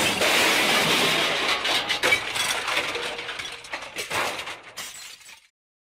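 Breaking glass: a wash of shattering with scattered tinkling shards that fades out over about five seconds and ends in silence.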